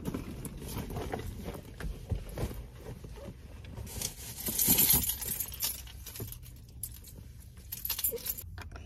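Keys jangling together with the rustling and handling of a leather handbag inside a parked car, with scattered small clicks and knocks. The rustle is loudest about four to five seconds in.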